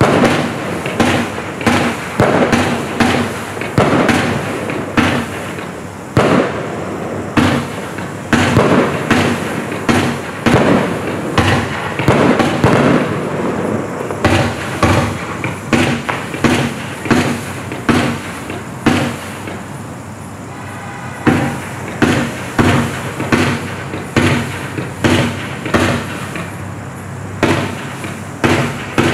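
A Black Cat Color War 48-shot firework cake firing shot after shot. It goes off at roughly one or two shots a second, each a sharp report with a short tail of burst and crackle, with a brief lull about twenty seconds in.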